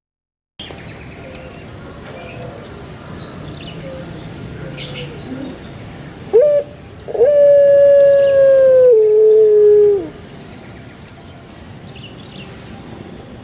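A single long animal call: a short rising note, then a loud, drawn-out note that holds steady, drops a step in pitch and falls away at the end, over faint bird chirps.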